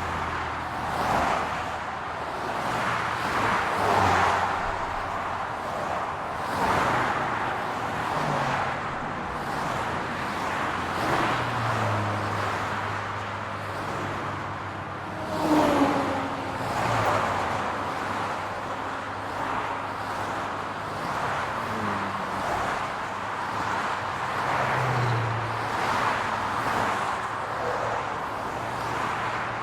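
City road traffic: a steady wash of car engines and tyre noise, swelling as cars pass one after another. The loudest car passes about halfway through.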